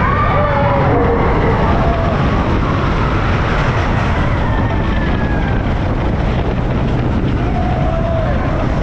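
Roller coaster ride: the train's loud steady rumble and wind rushing over the microphone, with a few short shrieks in the first second or so and again near the end.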